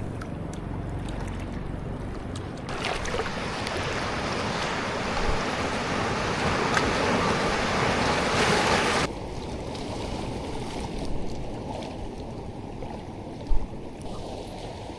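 Sea surf washing onto a rocky shore with wind on the microphone. The hiss swells louder for several seconds and then drops off suddenly. Near the end there is a brief low thump.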